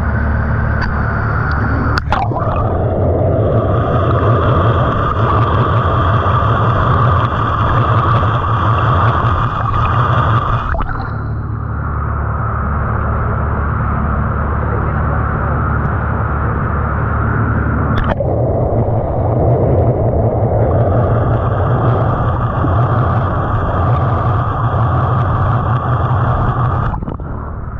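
Small fishing boat's engine running steadily. Two sharp knocks come about 2 seconds and 18 seconds in.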